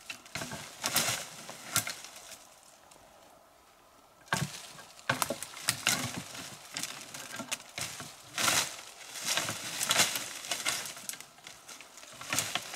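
Footsteps through forest undergrowth, with leaves and brush rustling and twigs crackling in uneven bursts. There is a pause of about two seconds shortly after the start, then steady walking.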